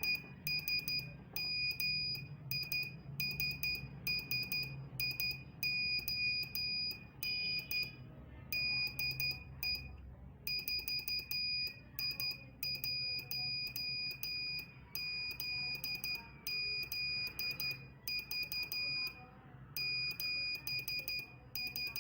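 Morse code (CW) sidetone: a high-pitched beep keyed on and off in dots and dashes as a modified CW encoder automatically sends a typed message through an S-Pixie QRP transmitter. There are short pauses between words, and a faint low hum runs underneath.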